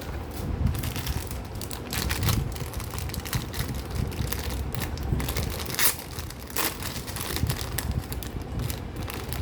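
Packaging crinkling and rustling in irregular crackles as it is handled and opened during unboxing.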